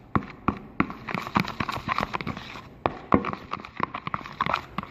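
Spatula stirring a slime mixture of glue, lotion and water in a cup: irregular sticky clicks and taps, several a second.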